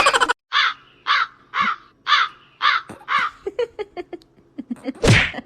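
A bird calling in a series of short calls, about two a second, which then come shorter and faster, ending with one louder call near the end.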